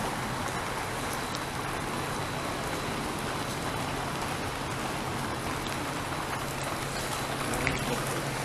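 Steady rain, an even hiss with no break, over a low steady hum; a single faint click near the end.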